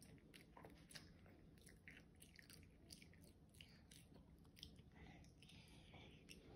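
Faint chewing of a toddler eating bites of blueberry waffle, heard as small, irregular mouth clicks.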